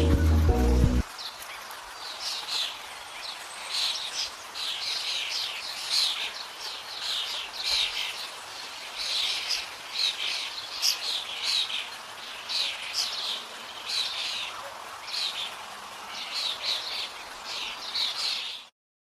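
Small birds chirping: many short, high chirps in quick succession over a faint hiss, starting about a second in and cutting off abruptly near the end.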